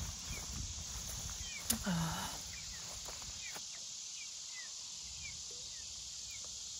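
Young chickens peeping: short falling chirps every second or so over a steady outdoor hiss. About two seconds in there is a sharp click and a brief low voice sound.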